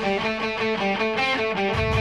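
Rock background music with a quickly picked guitar riff; a heavy low end of bass and drums comes in near the end.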